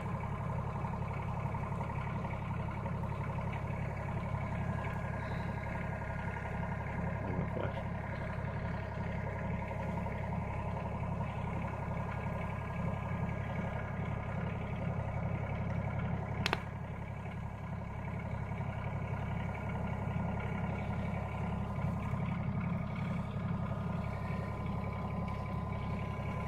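Tractor engine running steadily under load, pulling on the roof of a house to bring it down. One sharp crack cuts through about two-thirds of the way in.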